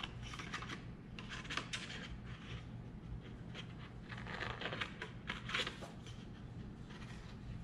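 Scissors snipping through cardstock: a series of short, irregular cuts.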